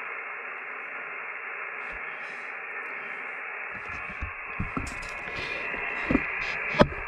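ICOM IC-7300 HF transceiver's speaker giving a steady hiss of receiver static, with no signal coming through, while tuned on the 20-metre band in USB. From about halfway, scattered knocks and clicks join it, with a sharp click near the end.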